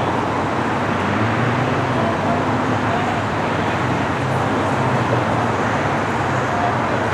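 Steady street traffic noise: road traffic running continuously, with a low engine hum underneath.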